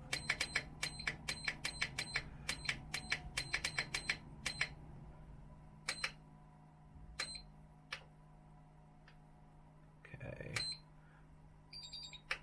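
Hobby battery charger beeping as its buttons are pressed to set up a nickel-metal-hydride pack: a quick run of short high beeps, about four a second, for the first four and a half seconds, then a few single beeps a second or so apart, and a different, longer beep near the end.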